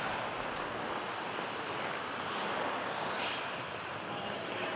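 Steady hiss of many ice skate blades gliding and carving on rink ice, with a sharper scrape about three seconds in.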